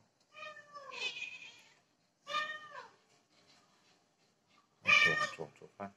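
Domestic cat meowing three times, each call falling in pitch; the third, about five seconds in, is the loudest.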